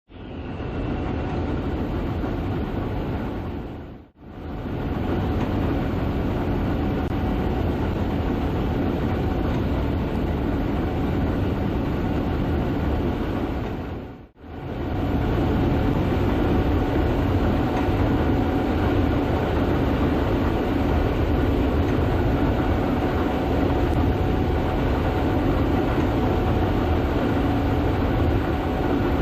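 Gleaner S98 combine running while harvesting soybeans: a loud, steady machinery drone with a few constant tones in it. It cuts out briefly twice, about four seconds in and again about fourteen seconds in, then picks up again.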